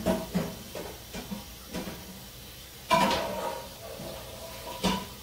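Kitchen clatter: several knocks of cookware and utensils being handled, the loudest about three seconds in with a brief metallic ring, and another sharp knock near the end.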